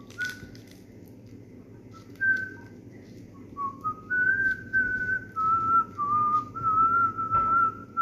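A person whistling a slow tune: clear single notes, each held briefly and stepping up and down in pitch, with a short click right at the start.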